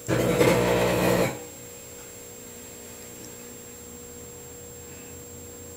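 An iPod Shuffle arcing inside a running microwave oven gives a loud buzzing burst lasting just over a second at the start. After it, only the oven's steady hum remains.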